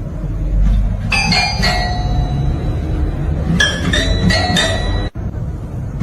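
Bell-like chimes ringing in short runs of several quick notes, three times, over a steady low rumble.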